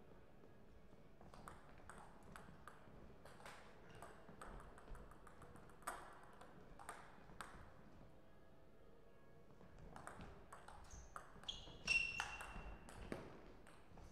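Table tennis rallies: the ball ticks sharply and irregularly off the bats and the table. There are two spells of play with a lull in the middle. A few short high squeaks come near the end of the second spell, the loudest sounds heard.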